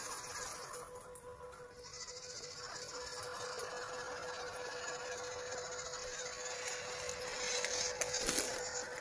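Small electric motors and gearboxes of 1/12-scale MN RC crawler trucks whining steadily as they drive. The sound grows louder near the end as a truck comes close.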